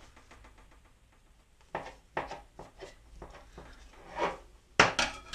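Kitchen knife cutting through bread dough on a wooden board: quiet at first, then a few sharp taps and knocks from about two seconds in, the loudest near the end.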